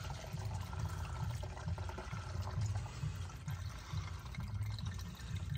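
Thin engine oil pouring in a steady stream from the truck's open drain hole into a drain pan.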